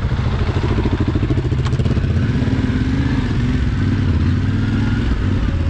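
Adventure-trail motorcycle engine running while riding off-road, its pitch rising and falling a little with the throttle.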